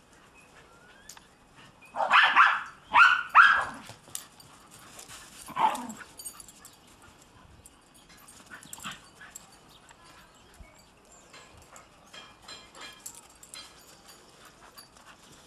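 A dog barking in play: three barks in quick succession about two seconds in and one more a couple of seconds later, followed by faint scuffling in the snow.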